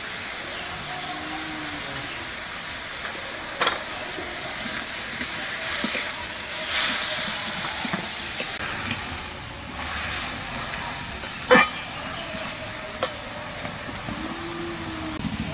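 Chopped water lily stems sizzling in mustard oil in a metal karai while a flat metal spatula stirs them, with a few sharp clinks of the spatula against the pan, the loudest about eleven seconds in.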